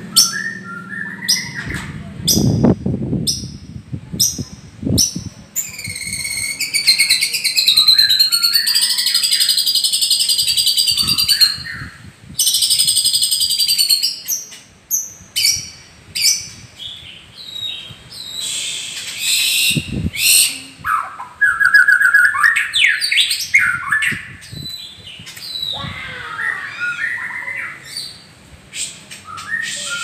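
White-rumped shama (murai batu) singing in its cage. It starts with a string of sharp clicking notes, then gives a long, fast rattling trill lasting several seconds, then varied whistled phrases that glide up and down. Two low thumps come early on and about two-thirds of the way through.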